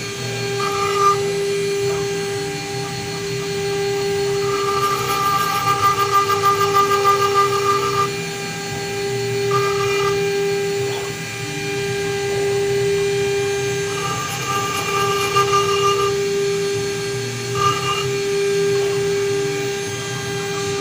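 CNC router spindle running with a steady whine while a fine engraving bit cuts into a brass plate; a higher tone comes and goes every few seconds as the cutter works along the lettering.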